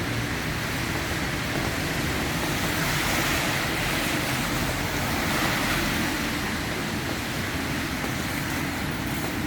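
Steady rushing noise of rain and road traffic on wet streets, unbroken and without distinct events.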